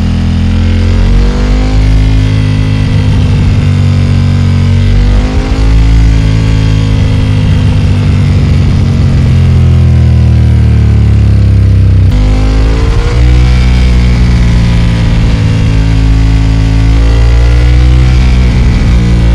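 Ducati XDiavel S's 1262 cc Testastretta L-twin running through a Termignoni exhaust while riding. The engine note rises and falls in pitch several times as the bike accelerates and shifts gears.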